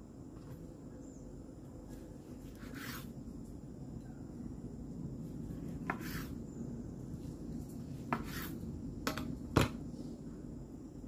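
Kitchen knife slicing through a kimbap roll on a bamboo cutting board: a few short, crisp strokes through the seaweed wrap, spaced a second or two apart from about three seconds in, with a sharper knock against the board near the end.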